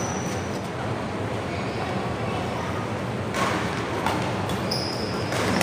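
Badminton doubles rally: a few sharp racket strikes on the shuttlecock in the second half, with brief high squeaks of court shoes. Underneath is a steady background hum with faint chatter from onlookers.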